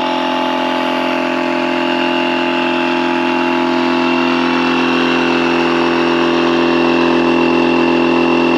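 Electric air pump running steadily, inflating the air beams of a Kampa inflatable awning: a constant motor hum that grows slightly louder toward the end.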